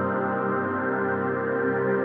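Ambient 'healing frequency' meditation music: a steady layer of long, sustained tones held at an even level, without any beat.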